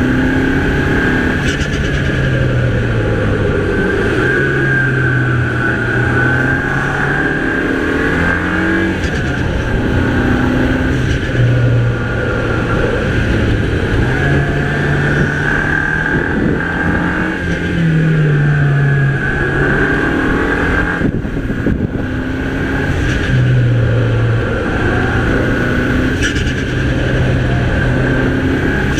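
Mini Cooper's 2.0-litre turbocharged engine under driving load, its revs rising and falling every few seconds as the throttle and gears change, with a steady high turbo whine above the engine note.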